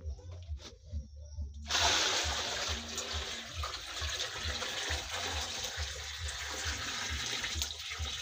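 Water poured from a plastic bucket into a large metal cooking pot (sufuria), a steady splashing pour that starts suddenly about two seconds in and keeps going.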